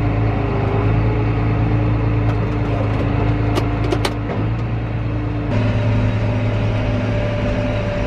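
Tractor engine running steadily, heard from inside the cab, with a few light clicks near the middle. About two-thirds of the way through, the engine's note changes abruptly.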